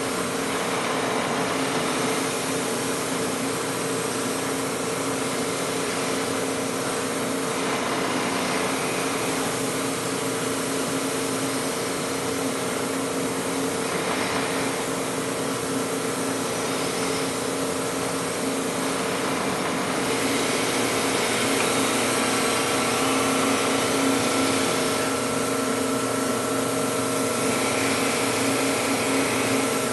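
Drill press running with a chuck-mounted wire wheel scrubbing surface rust off a quarter-inch steel plate: a steady motor hum under a scratchy hiss that swells every few seconds as the plate is pushed against the brush.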